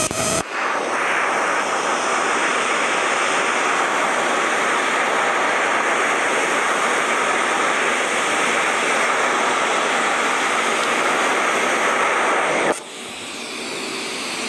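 TIG welding arc from an AHP AlphaTIG 200 burning with a steady, even hiss for about twelve seconds. It cuts off abruptly near the end, leaving a quieter hiss.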